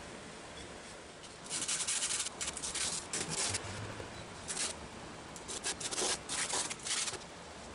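A small piece of purpleheart being sanded by hand, rubbed back and forth on a sheet of sandpaper laid flat on the bench. The scratchy rubbing comes in several short bursts starting about a second and a half in.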